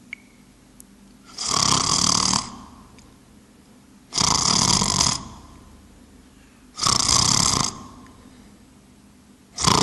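A person snoring, three long snores about every two and a half to three seconds, with a fourth beginning at the very end.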